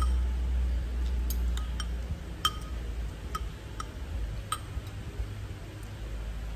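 Metal cutlery clinking against a ceramic bowl and plate while eating: about eight light, irregularly spaced clinks, each with a brief ring, over a low steady hum.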